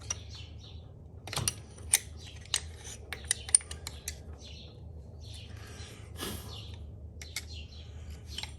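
Scattered light metallic clinks and taps as the metal internals of a motorcycle rear shock are handled and pulled apart, over a steady low hum.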